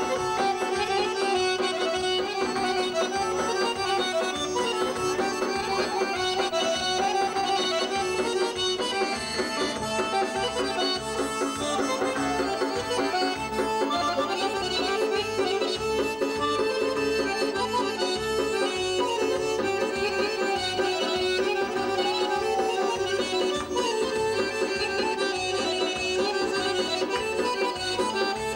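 Two Azerbaijani garmons (button accordions) playing a traditional folk melody together over an evenly repeating low rhythm.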